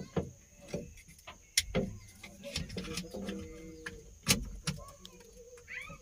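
Scattered plastic clicks and knocks of a wiring-harness plug being pushed onto and seated in an excavator's electronic controller unit.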